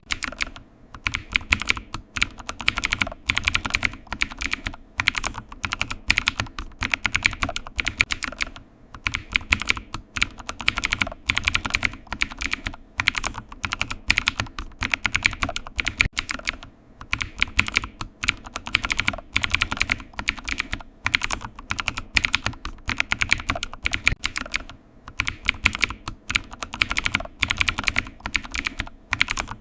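Computer keyboard typing: quick runs of key clicks in bursts of a second or two, with short pauses between them.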